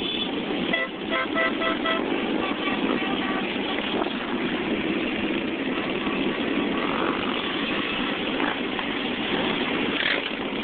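A column of motorcycles riding, their engines running steadily under road noise. A vehicle horn gives about four short toots about a second in.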